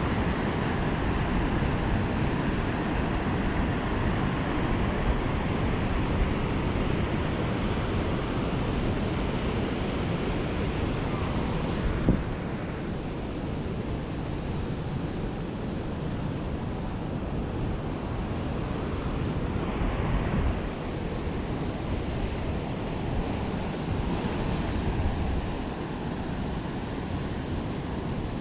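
Steady rush of a flowing river with wind buffeting the microphone. A single sharp knock comes about twelve seconds in, and the sound is a little quieter after it.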